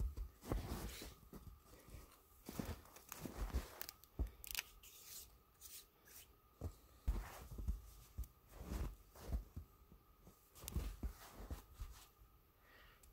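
Small tinder bundle of dry grass and twigs crackling as it catches fire. The crackle comes in irregular bursts of sharp snaps, several times.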